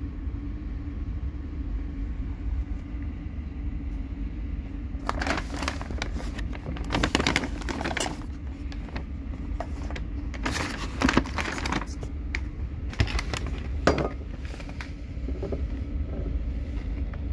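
Paper takeaway bag rustling and crackling in bursts as items are lifted out of it, from about five seconds in until about fifteen, with a couple of sharp knocks. Under it runs the steady low rumble of a moving vehicle.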